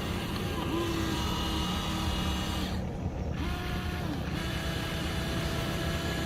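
Radio-controlled excavator's electric motors whining over a steady mechanical hum. The whine tones stop, start and shift in pitch several times as the machine's movements change.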